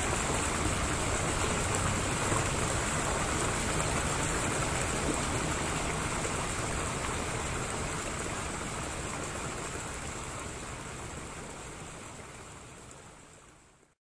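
Steady rushing background noise with no clear tone or rhythm. It fades out gradually over the last several seconds.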